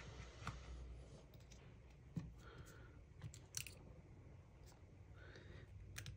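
Faint, scattered small clicks and taps from a precision screwdriver and tiny metal screws and brackets being worked loose inside an opened iPhone: a few sharp ticks over quiet room tone.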